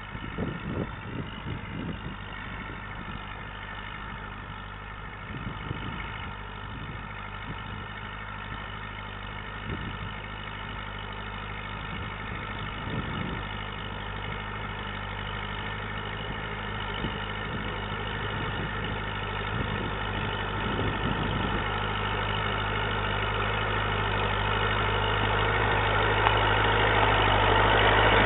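1959 Massey Ferguson 65 tractor engine running steadily while ploughing, growing steadily louder as the tractor comes closer. A few low thuds sound in the first couple of seconds.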